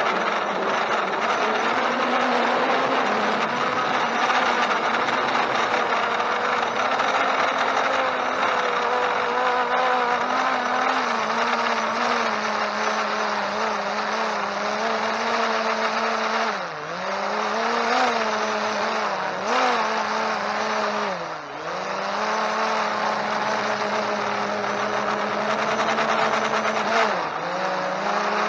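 Holystone HS700D quadcopter's motors and propellers whining at a steady pitch, with three brief dips in pitch in the second half as the throttle eases.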